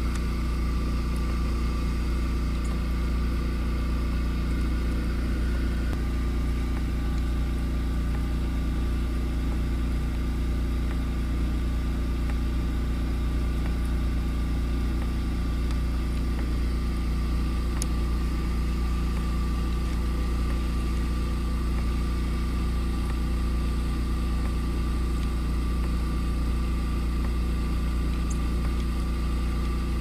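A steady, unchanging engine hum at idle: a constant low drone with a few steady tones above it.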